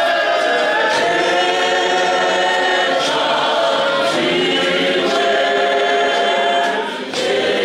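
A church choir of women singing a hymn together, several voices held and moving in harmony, with a short break in the singing near the end.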